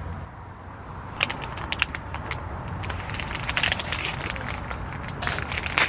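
Plastic ice cream wrapper crinkling and crackling as hands pull it open, a run of sharp crackles starting about a second in.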